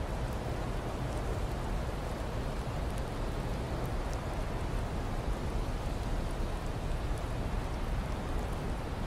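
Blizzard ambience: a steady rush of wind-driven noise, strongest in the low rumble and unchanging in level.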